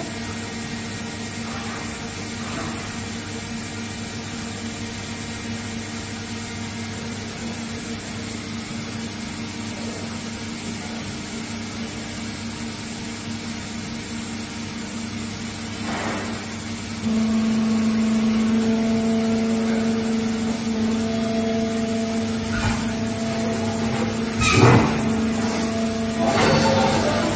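FINN-POWER TRS 64 CNC punching machine running: a steady machine hum that steps up louder, with a stronger hum, a little over halfway through. A few sharp clunks come near the end, the loudest about three seconds before the end.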